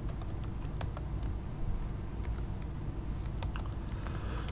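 Computer keyboard being typed on: irregular, scattered keystroke clicks as a short shell command is entered.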